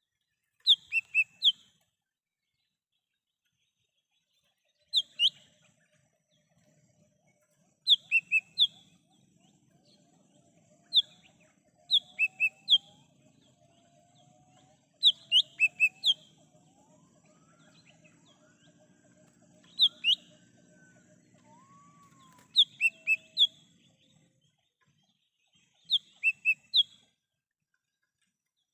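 Cucak hijau mini, a small green leafbird, calling: short, sharp, high chirps in quick groups of two to four, repeated every few seconds. Fainter, lower sliding whistles from another bird run under it through the middle.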